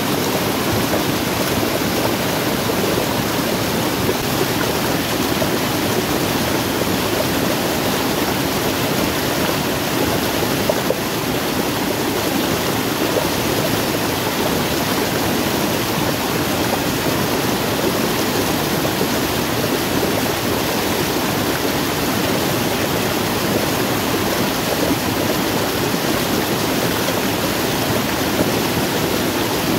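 Stream pouring down a small waterfall over rock: a steady, loud rush of water.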